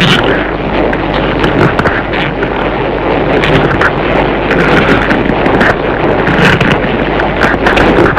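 Tokusatsu sound effect of a loud, continuous rumble filled with dense crackling and popping.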